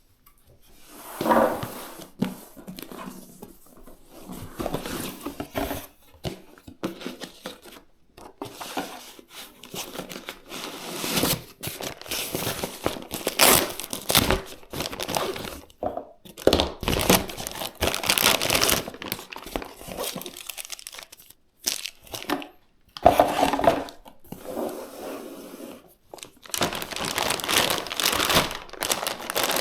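Plastic packaging crinkling and rustling in bursts as it is handled, with some tearing.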